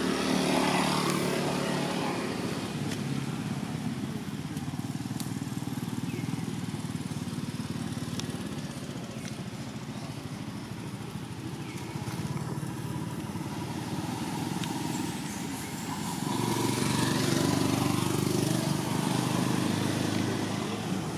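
A motor vehicle engine running steadily, a low hum that grows louder for a few seconds near the end before easing off.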